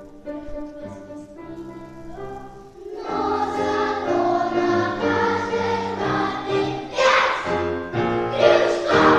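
Children's choir singing a song, soft at first and then much louder and fuller about three seconds in.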